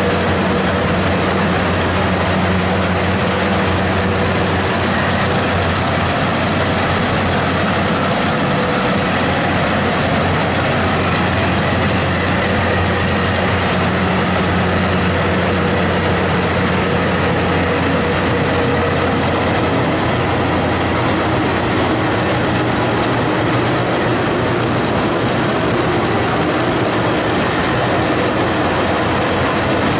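Rice combine harvester running steadily: a loud, unbroken mechanical noise with a constant low engine hum.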